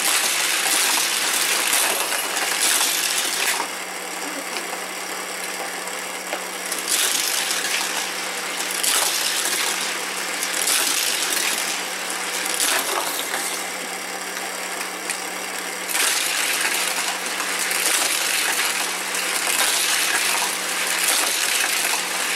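Battery-powered booster of a plastic toy race track running with a steady hum and a loud whirring hiss from its spinning wheels, set on high speed, with die-cast cars rattling through it. The whir eases off twice and comes back.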